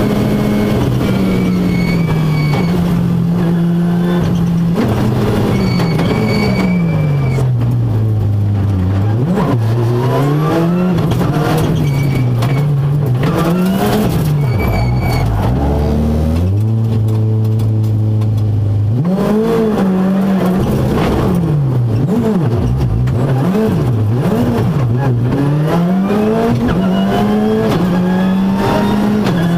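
Ford Fiesta R5+ rally car's 1.6-litre turbocharged four-cylinder engine, heard from inside the cabin at full stage pace. Its pitch climbs and falls again and again through gear changes and lifts, and drops to a low steady note for a couple of seconds a little past the middle.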